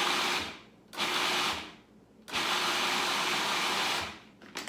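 Food processor motor pulsed three times, two short bursts and then a longer one of nearly two seconds, just enough to combine a veggie burger mixture of walnuts, olives and oats.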